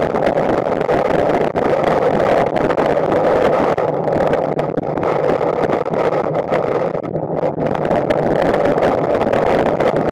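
Eyewall winds of a major hurricane, over 150 mph, blasting a storm-surge camera probe and rumbling over its microphone as one loud, steady rush.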